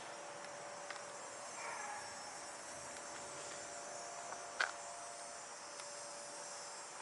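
Steady chorus of crickets and other insects, with a faint steady hum underneath. A single sharp click sounds about four and a half seconds in.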